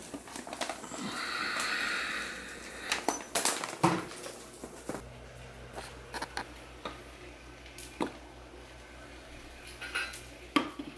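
Kitchen handling sounds while making pancake batter: a rustle as the pancake-mix box is handled, then scattered knocks and clicks of a bowl and measuring cup on the counter. A low steady hum comes in about halfway.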